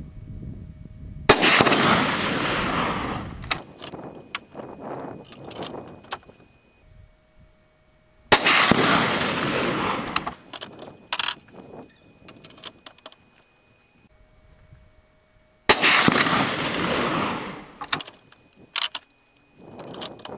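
Fully suppressed .50 BMG sniper rifle firing subsonic rounds: three shots about seven seconds apart, each a sharp report that trails off over about two seconds. After each shot come several sharp metallic clicks as the bolt is worked.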